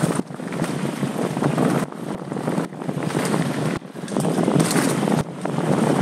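Wind rushing over the microphone of a Rylo 360 camera on a mountain bike descending a dirt trail, mixed with tyre and bike rattle noise. The rush drops away sharply for a moment every second or two.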